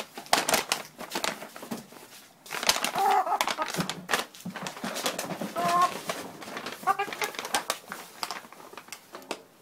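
A Barred Rock hen restrained in a paper bag, giving a few short pitched calls about three, six and seven seconds in. The paper crackles and rustles throughout as the bag is handled.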